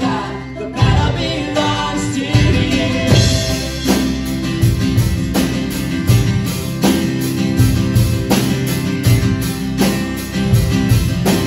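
Live worship band playing an instrumental passage of a contemporary worship song: acoustic and electric guitars, keyboard and drum kit with a steady beat. Voices trail off in the first few seconds.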